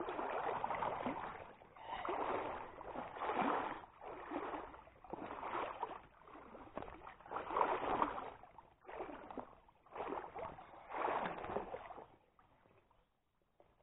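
Legs wading through stream water, a slosh with each stride about once a second, stopping near the end.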